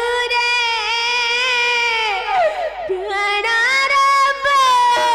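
A high female voice sings long, held notes with a wavering vibrato in an Odia Ramanataka stage song. About two and a half seconds in, the voice breaks off briefly with a few sliding notes, then takes up another long held note.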